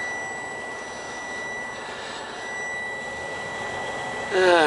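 Semi truck's engine idling, heard from inside the cab as a steady rumble, with a thin steady high-pitched tone over it. Near the end a loud whine sliding down in pitch starts.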